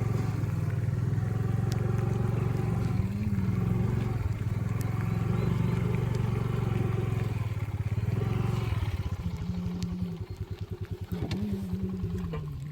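Motorcycle engine running steadily, its pitch rising and falling a little. About nine seconds in it drops to a slow idle with separate, evenly spaced firing beats.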